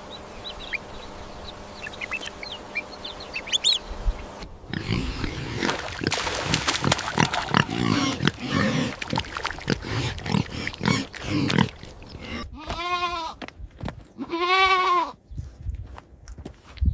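Farm animal calls in sequence: a few faint chirps, then several seconds of pig grunting and squealing, then two long goat bleats.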